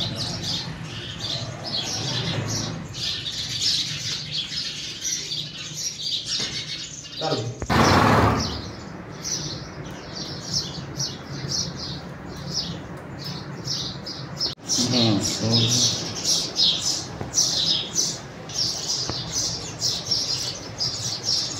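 Small birds chirping over and over, many quick short calls throughout. About eight seconds in comes a brief, loud rush of noise.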